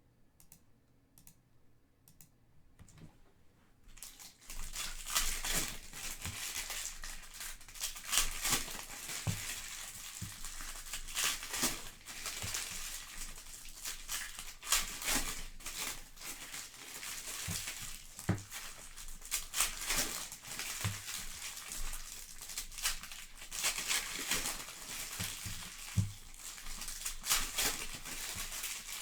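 Trading-card pack wrappers being torn open and crinkled: a dense run of crinkling with sharp crackles that starts about four seconds in, after a few faint clicks.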